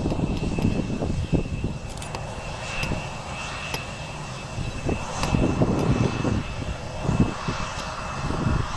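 Bombardier CRJ regional jet's rear-mounted turbofan engines running as it slows on the runway: a steady high whine over an uneven low rumble that swells and fades.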